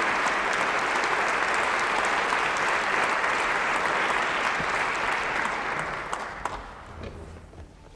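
Audience applauding in a concert hall. The clapping holds steady, then dies away about six to seven seconds in.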